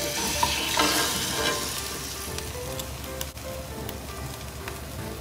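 Spanish potato omelette (tortilla) sizzling as it is slid from a plate back into a hot, oiled cast-iron skillet. The sizzle is loudest in the first couple of seconds, then settles to a softer, steady frying hiss.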